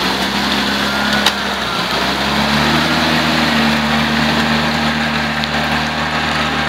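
UAZ-469 engine running under load as the four-wheel-drive works through deep mud and water, revs rising about two and a half seconds in and then holding steady, with the wheels churning mud. A single sharp click a little over a second in.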